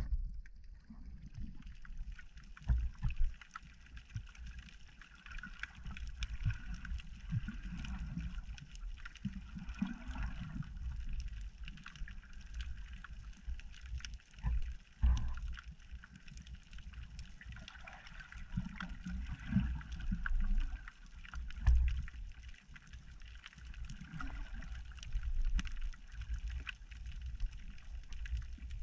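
Water moving around a GoPro in its waterproof housing in choppy surf: an uneven low rumble with heavy thumps now and then, over a steady hiss and many faint scattered clicks.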